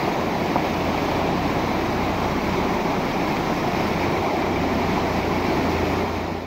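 Muddy floodwater rushing down a concrete channel, a steady, unbroken churning of turbulent water with a deep low rumble.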